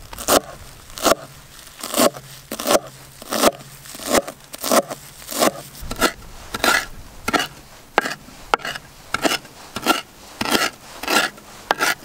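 Heavy cleaver-style knife chopping fresh spinach on a wooden cutting board, a steady rhythm of crisp chops about every two-thirds of a second.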